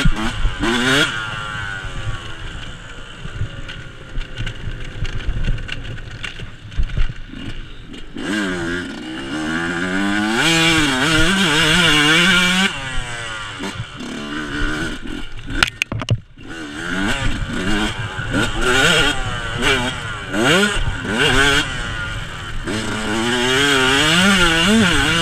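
Yamaha YZ125 two-stroke single-cylinder dirt bike engine revving up and down repeatedly as it races over rough off-road terrain, heard close up from on the bike. About two-thirds of the way through, the engine drops off sharply for a moment, with a few knocks, then picks up again.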